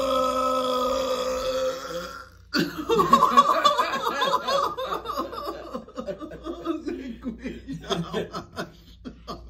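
A man's long, steady-pitched belch from gulping carbonated mineral water, ending suddenly about two seconds in. Then two men laugh loudly, fading toward the end.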